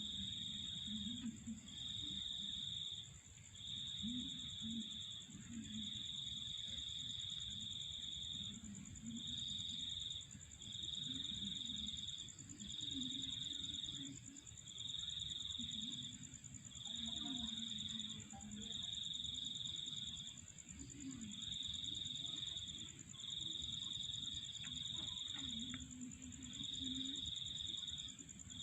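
Night insect chorus: a continuous high-pitched trill, with a lower trill that repeats in phrases about every two seconds. Faint low calls run underneath.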